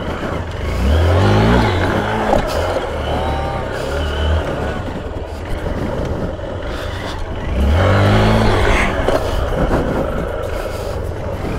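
Hero motorcycle's single-cylinder engine under load while riding over rough grassy ground, revving up hard twice: about a second in and again near eight seconds, easing off in between.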